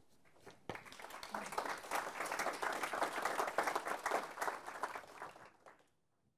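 Audience applauding at the end of a talk, the clapping starting about a second in and dying away near the end.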